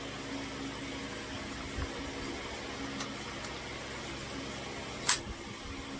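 Steady low background hum with a faint low tone, and a single sharp click about five seconds in as the rifle is handled; no shots are fired.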